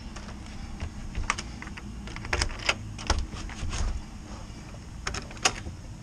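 Irregular clicks and small rattles of a key lockbox hanging on a door handle being worked by hand to open it and get the key out.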